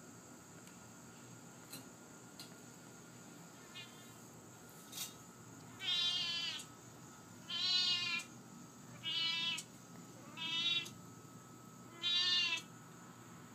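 Siamese cat meowing: a faint call about four seconds in, then five louder, drawn-out meows spaced about a second and a half apart.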